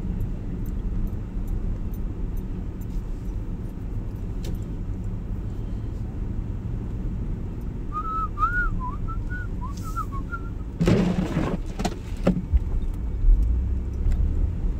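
Chevy S-10 pickup's steady low engine and road rumble. About eight seconds in, a person whistles a short wavering tune for about two seconds. Soon after comes a loud rushing noise lasting about a second and a half.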